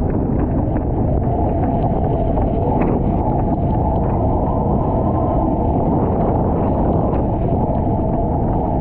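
Steady rush of wind buffeting the microphone of a board-mounted action camera, mixed with water rushing past a surf foil board as it glides.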